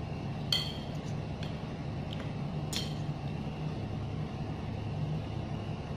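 Metal fork and spoon clinking against a glass serving bowl while stirring the food, a few light clinks with two sharper, ringing ones, about half a second in and near three seconds, over a steady low background hum.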